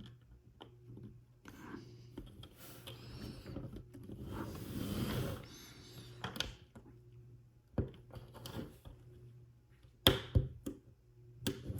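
Small plastic toy-car parts being handled and pressed together by hand: rustling and rubbing, with a few sharp clicks in the second half as pieces are snapped into place.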